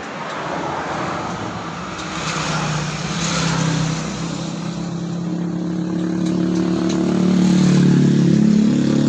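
A motor vehicle's engine running close by, growing louder over the second half, over a steady traffic-like rush of noise.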